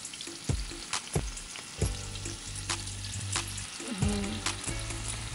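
Marinated bhetki fish pieces frying in hot oil in a pan: a steady sizzle with scattered sharp pops and spits.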